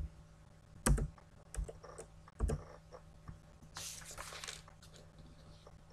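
Computer keyboard keystrokes: a few separate, sharp key taps while code is typed and edited, with a brief hiss-like noise about four seconds in.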